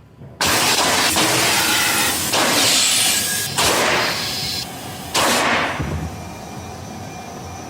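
A tire bead seater blasting compressed air at a stretched tire to seat its bead: three loud hissing blasts, each starting suddenly, the first lasting about three seconds, then a fainter steady hiss.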